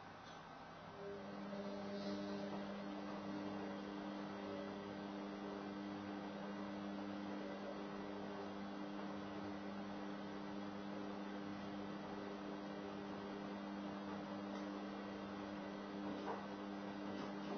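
Steady low electrical hum, a few even tones together, that comes in about a second in over a faint hiss.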